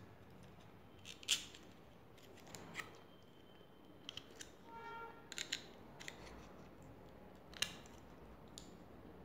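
Needle-nose pliers gripping and peeling back the thin metal casing of a 9-volt battery: scattered sharp clicks and crinkles of sheet metal, with a short squeak near the middle.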